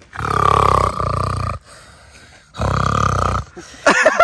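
Two loud growling roars, the first over a second long and the second shorter, with about a second's pause between, made as a mock lion's roar.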